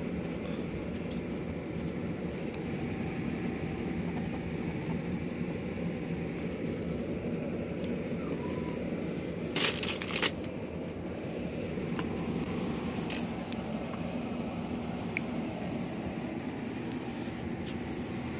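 A steady low machine hum under scattered rustling of fleece blankets and handling noise, with a loud burst of rustling about ten seconds in and a few sharp clicks after it.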